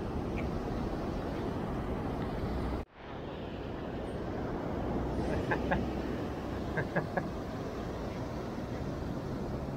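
Steady rush of surf and wind on the microphone, with a brief cut-out about three seconds in. A few short, faint high clicks come a few seconds later.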